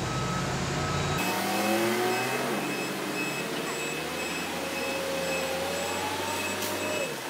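Sound effect of a car engine revving up through the gears, its pitch rising in steps and then climbing slowly before dropping off sharply near the end. Before it starts, about a second in, there is a low rumble.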